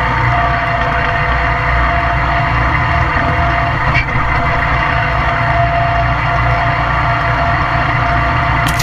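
Toro zero-turn mower's engine and cutting deck running steadily while mowing, a constant drone with a steady whine over it. A brief scrape near the end as spruce branches brush past.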